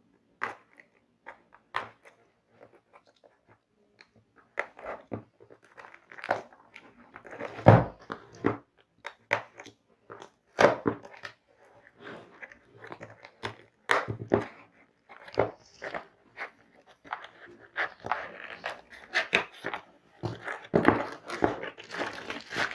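A cardboard box with a wired keyboard being cut open and unpacked by hand: irregular sharp crackling and rustling of packaging, busier in the second half.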